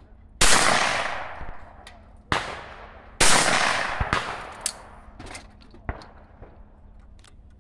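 Shotgun reports from clay target shooting: two loud shots about three seconds apart with a quieter shot between them, each trailing off in a long echo. Several faint sharp cracks follow.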